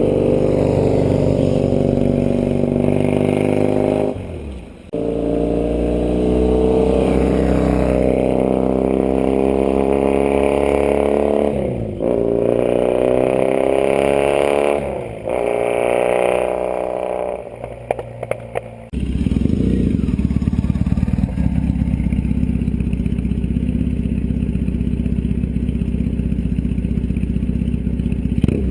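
Triumph Thruxton 900's air-cooled parallel-twin engine being revved in several long pulls, its pitch climbing and then falling back, with brief drops between them. For the last third it settles into steady, deeper running at a lower pitch.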